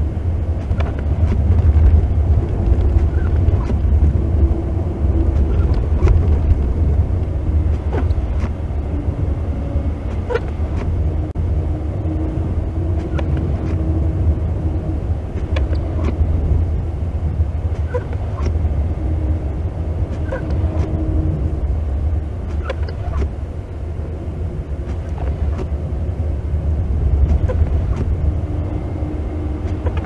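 Car cabin noise while driving slowly on a snow-covered road: a steady low rumble of tyres and engine, with a faint steady hum and scattered light clicks.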